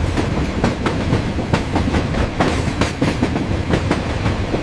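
A train rolling along the track: a steady rumble with wheels clacking over the rail joints again and again.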